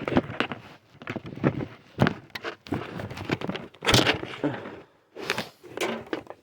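Handling noise close to the microphone: an irregular run of knocks, clicks and rubbing as a hand-held phone and small plastic gear are moved about.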